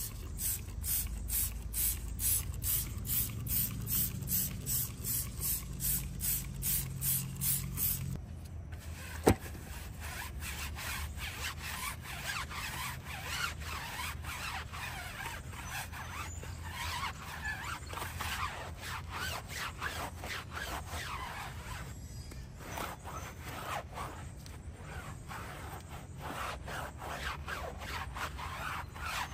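Trigger spray bottle squirting cleaner onto a car tyre and wheel, about two squirts a second for some eight seconds. Then a stiff-bristled brush scrubbing the tyre sidewall and alloy wheel, an irregular scratchy scrubbing, with one sharp knock just after the spraying stops.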